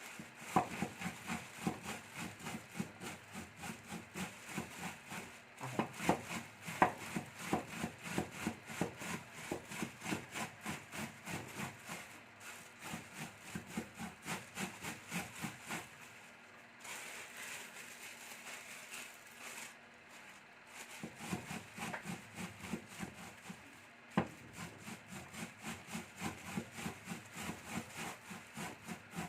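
Molokhia leaves being minced with a makhrata, a two-handled rocking mincing blade, through a plastic bag on a towel: rapid rhythmic chopping strokes, about three a second, with a short break past the middle.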